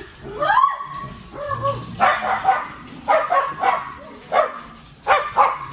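Dogs barking and yipping again and again in short sharp calls, with a rising whine about half a second in.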